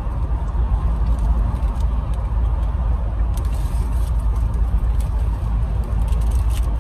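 Steady low rumble of road and engine noise inside a moving car's cabin, with a few faint crinkles of a paper sandwich wrapper.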